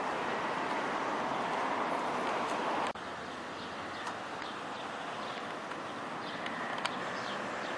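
Outdoor ambience: a steady rushing background noise that drops off abruptly about three seconds in, leaving a quieter background with small birds chirping now and then and a single sharp click near the end.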